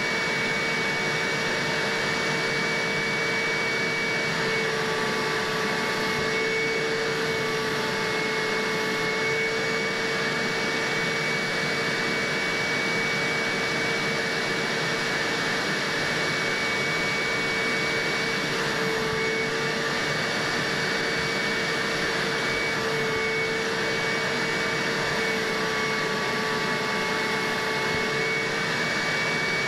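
A Hoover carpet and upholstery shampooer running steadily, its upholstery hand tool working over a cloth couch cushion. The motor's steady whine sits over an even rush of suction.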